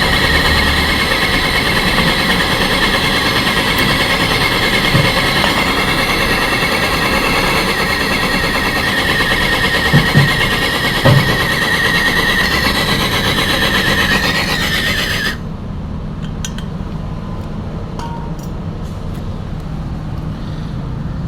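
Brazing torch flame hissing steadily while a valve is brazed onto a refrigerator's cut copper refrigerant pipe, with a couple of short knocks; the hiss cuts off suddenly about fifteen seconds in, leaving a low hum.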